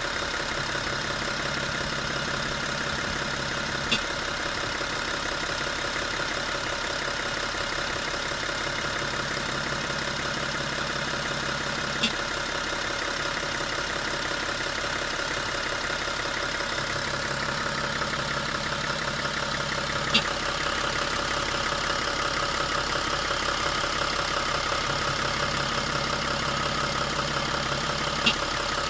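BMW 335d's twin-turbo diesel straight-six running steadily at idle, with a short sharp click recurring about every eight seconds, four times in all.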